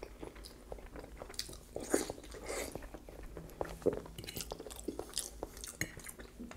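Close-up chewing of soft scalloped potatoes with ketchup, with small wet mouth clicks and smacks scattered throughout.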